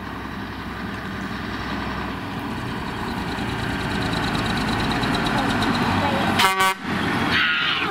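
A 1984 Mack R-series truck's diesel engine running as the truck drives up and past, growing steadily louder. About six and a half seconds in there is a brief, loud blast, the loudest moment.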